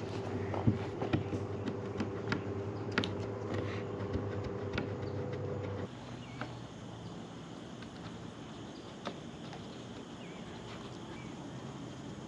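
Scattered light clicks and taps of hands working a rubber window seal into a window frame, over a steady low hum that cuts off about six seconds in.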